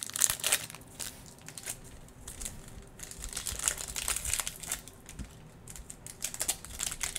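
Foil trading-card pack from a 2021 Mosaic NFL blaster box crinkling in the hands and being torn open, in irregular bursts of crackle.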